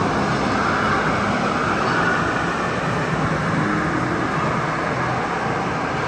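Steady engine and traffic noise with a low engine hum that rises a little near the middle.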